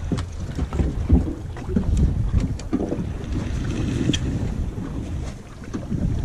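Wind buffeting the microphone outdoors by the sea, an uneven low rumble with faint water sounds and a few small clicks.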